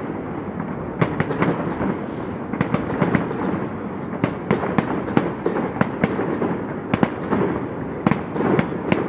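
Fireworks going off in rapid succession: many sharp cracks and pops, several a second, over a continuous rumble of bangs.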